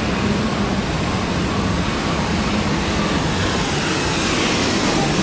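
Case IH 8930 super stock pulling tractor's diesel engine running flat out under load as it drags the sled down the track: a loud, steady roar.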